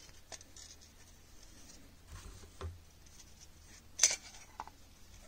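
Handling noises from a Glock pistol and its add-on magwell: soft rubbing and a few light taps, then one sharp click about four seconds in, followed by a smaller one.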